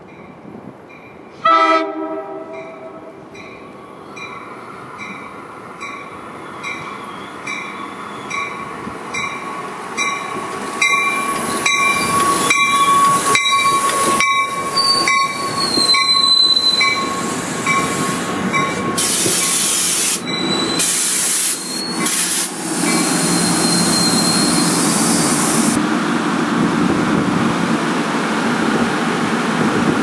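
NJ Transit commuter train arriving, led by a Comet cab car: one short horn blast about a second and a half in, then a steady ticking about one and a half times a second as it approaches. Wheel and brake squeal follows, with falling squeals, and from about halfway through the loud running noise of the cars rolling past.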